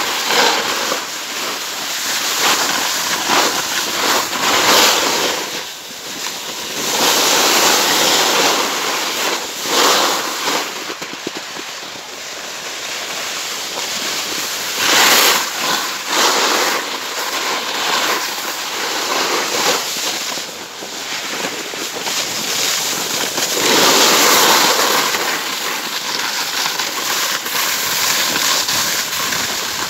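A snowboard sliding and scraping over packed snow in long, uneven surges, with wind buffeting the phone's microphone.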